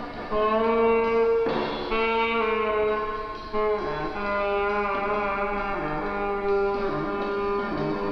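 Soundtrack music: a slow line of held notes, each changing pitch after a second or so.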